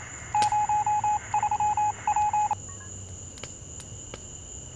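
Mobile phone ringing: a trilling electronic ringtone in short repeated bursts that cuts off about two and a half seconds in.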